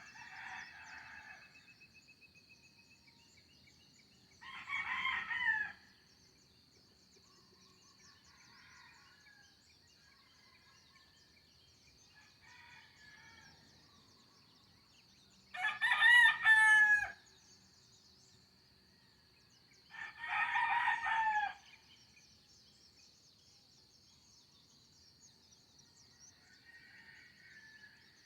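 Rooster crowing three times, each crow about a second long, the loudest about two thirds of the way through, with faint bird chirps between the crows and a steady high-pitched tone underneath.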